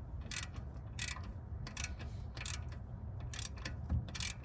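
Ratchet wrench with a 14 mm socket clicking in short bursts as it is worked back and forth, loosening the adjuster bolt so the loose power steering belt can be re-tensioned.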